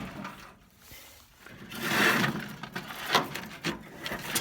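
A metal grill being handled and shifted: a rough scraping about two seconds in, then a few sharp light knocks.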